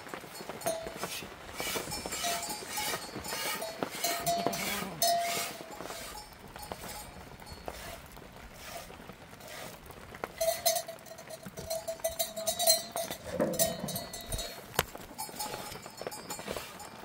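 A small livestock bell on the goats clinking irregularly as they move about, with its ringing tone held longest about ten to thirteen seconds in.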